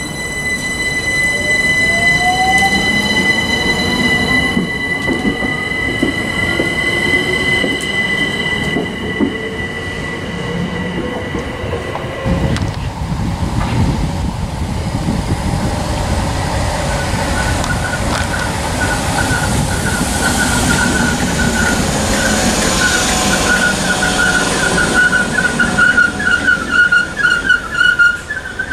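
Electric multiple-unit train pulling away from the platform: a steady high whine with a second tone rising in pitch as it accelerates, dying away after about twelve seconds. Then another electric train runs in and brakes to a stop, with a wavering high squeal that grows louder near the end.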